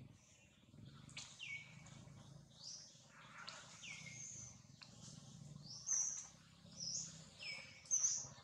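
Birds chirping: a series of short high chirps and falling whistled notes, about one a second, loudest near the end.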